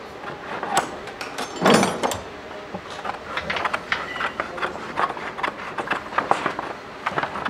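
Metal hand shears cutting through a stiff sheet of motor insulation paper on a wooden bench: irregular snips, crackles and rustles of the sheet, with one louder crunch about two seconds in.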